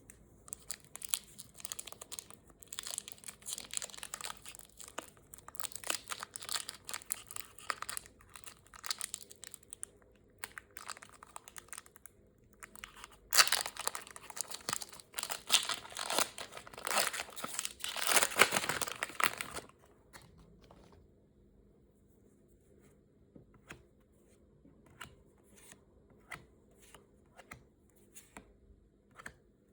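Packaging on a Pokémon card collection box being torn open and crinkled, in a run of dense crackling rustles. The rustling gets louder and denser about halfway through, then stops, leaving a few light clicks and taps of handling.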